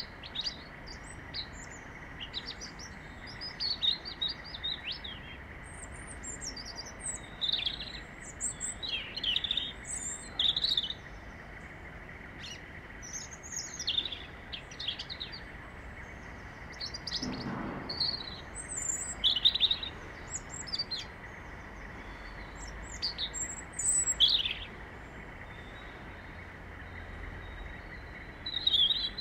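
European robin singing: short phrases of high, thin warbling notes and trills, each about a second or two long, separated by pauses of a few seconds.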